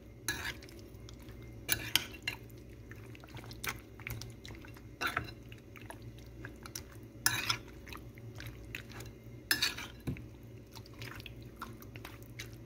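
Metal spoon mixing raw chicken pieces in marinade in a glass bowl: irregular clinks and knocks of the spoon against the glass, over a steady low hum.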